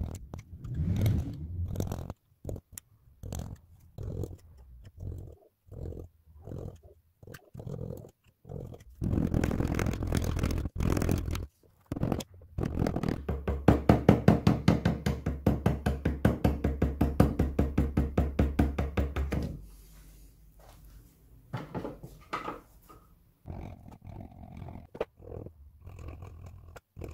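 Hand carving of a softwood wand in a bench vise: a gouge cutting and paring the wood in short, separate strokes. In the middle comes a fast, even run of strokes, about five a second, for several seconds. Near the end a white mallet taps a chisel.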